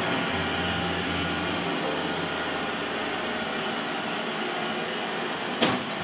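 Eufy RoboVac 11S robot vacuum running on a wooden floor, a steady whirring drone, with one short knock near the end.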